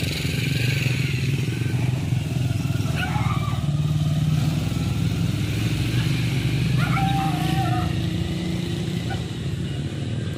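Small motorcycle with a side cart, its engine running steadily as it passes.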